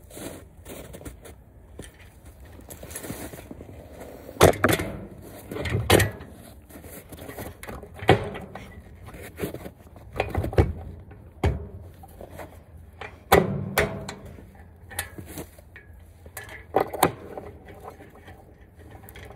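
Metal clanks and scrapes of a small trailer's coupler being fitted onto an ATV's hitch ball: irregular sharp knocks every second or two, over low wind rumble on the microphone.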